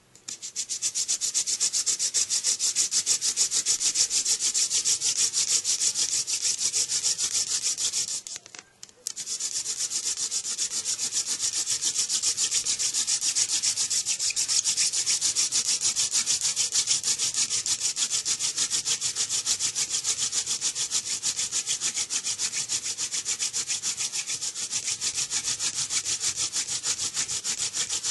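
Hand-drill spindle twirled between the palms and grinding into a goldenrod gall hearth: a fast, rhythmic, hissing friction noise, made to build hot dust for a fire-by-friction ember. It stops for about a second some eight seconds in, then goes on.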